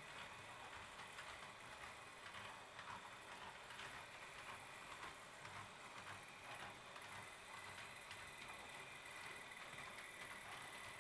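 Roco HO-scale DCC model train running along its track: faint irregular clicking of wheels on rail, with a thin steady high whine that becomes clearer about halfway through.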